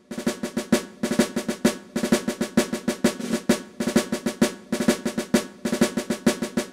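Percussive music: a fast drum rhythm of snare and drum strikes, several hits a second.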